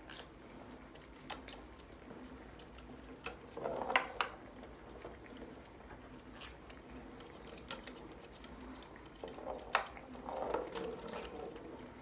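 Light, irregular tapping and clicking of conures' feet and beaks on a wooden tabletop soccer board, with the small ball knocking about. There are louder knocks about 4 seconds in and again near 10 seconds.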